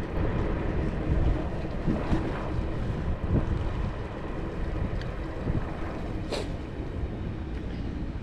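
Wind buffeting the microphone while riding a Ninebot electric scooter, under the steady sound of the scooter rolling with a faint motor whine. One sharp click about six seconds in.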